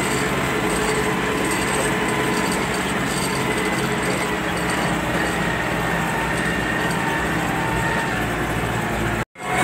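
MTZ-82 (Belarus) tractor's four-cylinder diesel engine running steadily under load while disking stubble, heard from inside the cab. The sound breaks off abruptly for a moment near the end.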